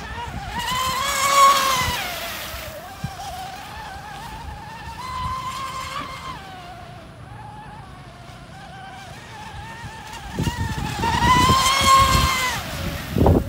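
Electric motor of an 82 cm mono-hull RC speedboat on a 6S LiPo battery, whining at high speed. It grows louder and higher twice, about a second in and again near the end, as the boat passes close, and drops in pitch as it moves away.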